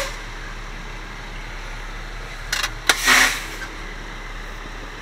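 Steady drone of an idling truck heard inside the cab, broken by a few clicks about two and a half seconds in and a short, loud hiss just after.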